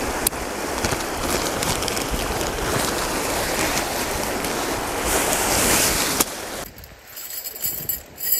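Steady rushing of a stream with wind on the microphone, which cuts off about six seconds in. After that, light metallic clinks of a bundle of aluminium tent poles being handled.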